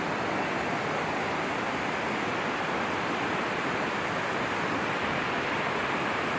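Steady rush of water from the Chegem waterfalls, an even, unbroken noise.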